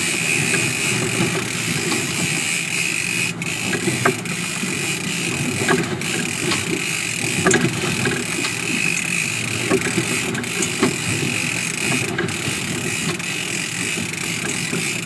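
Sport-fishing boat's engines running steadily under way, with the wake's water rushing behind the stern and a few light clicks.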